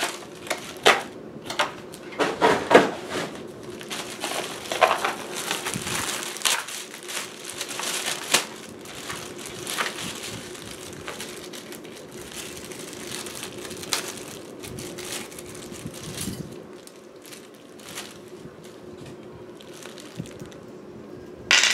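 Cardboard packaging and a crinkly plastic bag being handled as a new bicycle disc brake rotor is unpacked: irregular rustling and sharp crackles, busiest in the first half and sparser later.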